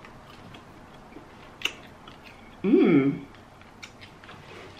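Scattered light clicks and taps of a utensil being handled over a plate of seafood boil, with a short wordless voice sound, its pitch dipping then rising, about three seconds in.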